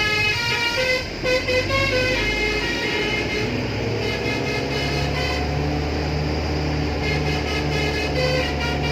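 Indian truck's musical horn playing a tune, short notes jumping from pitch to pitch, over car engine and road noise.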